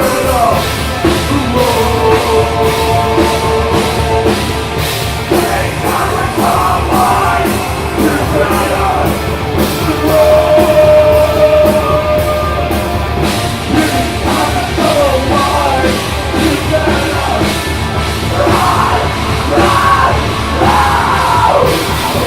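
Live rock band playing loud, with a steady drumbeat, distorted guitar and shouted singing.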